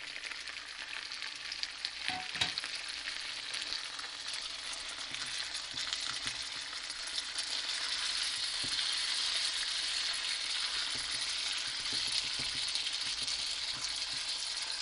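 Seasoned chicken pieces, just added to hot oil with onion, sizzling and frying in a frying pan while a wooden spoon stirs them. The sizzle is steady and gets louder about halfway through, with a couple of knocks about two seconds in.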